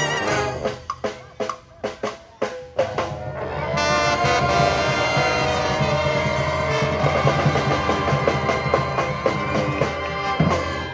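Street brass and drum band playing: for the first few seconds short punched hits from the drums and horns, then from about four seconds in the whole band with cymbals plays together, ending the song on a final hit near the end.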